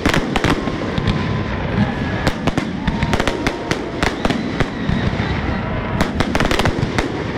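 Aerial fireworks display: a rapid, overlapping string of sharp bangs from bursting shells, with crackling stars and a continuous rumble between the reports.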